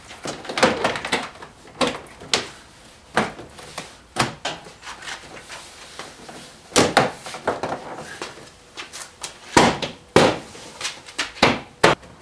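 Pickup truck door trim panel being pressed and thumped on by hand, its plastic retaining clips snapping into the door: about a dozen sharp, irregular knocks and snaps.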